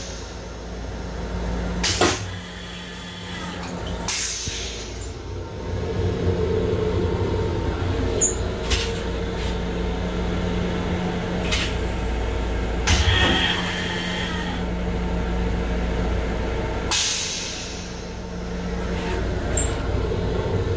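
Long Island Rail Road M7 electric railcar running, heard from inside its restroom: a steady low rumble with a steady hum. Several short bursts of hiss break in, about two, four, thirteen and seventeen seconds in.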